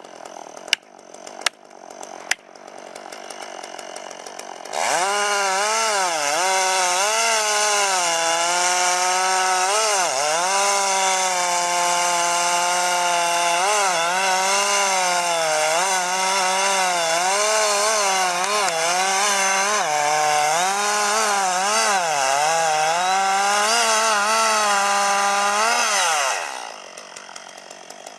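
Two-stroke chainsaw cutting a tree at full throttle for about twenty seconds, its pitch dipping and recovering again and again as the chain bogs in the wood, then dropping back to idle near the end. A few sharp clicks come before it opens up.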